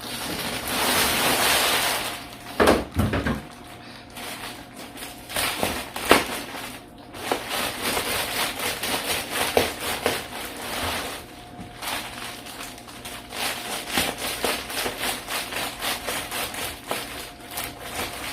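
Reflectix foil-bubble insulation being handled, with a rustling slide early on, a few knocks, then irregular crinkling and crackling.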